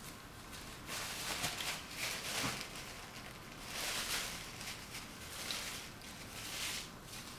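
Paper napkin rustling and crinkling in several short bouts as sticky fingers are wiped clean of maple syrup.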